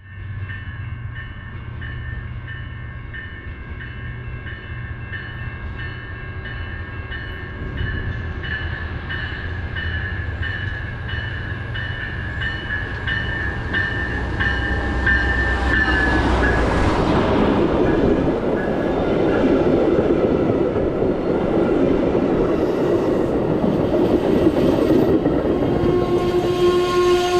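Amtrak passenger train arriving. A locomotive rumbles low under a bell ringing steadily at about two strokes a second. Around halfway through the bell's pitch dips, and a loud rush of wheels and rail noise takes over as the train comes alongside. A steady tone starts near the end.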